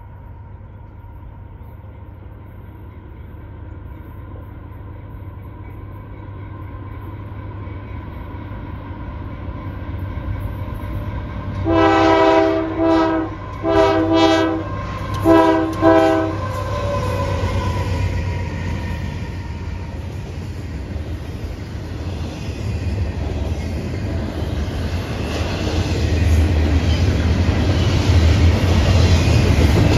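Approaching diesel freight locomotives, their low rumble growing steadily louder. About twelve seconds in, the multi-chime air horn sounds long, long, short, long, the grade-crossing signal. The locomotives and double-stack container cars then pass with louder running noise and wheel clatter.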